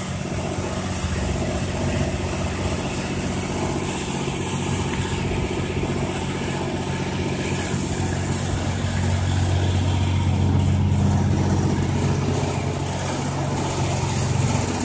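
A loud motor running steadily with a low, even hum that sounds like a lawnmower motor, swelling a little past the middle.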